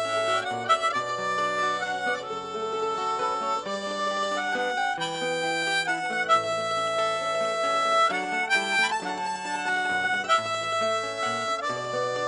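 Harmonica playing a folk tune in long held notes, over a strummed acoustic guitar and a smaller plucked string instrument.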